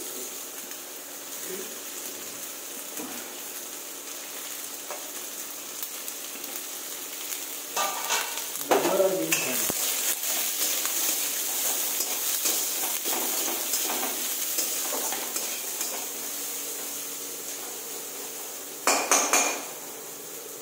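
Chopped carrots and beans sizzling in hot oil in a pan while being stirred, with the spatula scraping and clinking against the pan. The sizzling grows louder about eight seconds in, and there is a louder clatter of utensil on pan near the end.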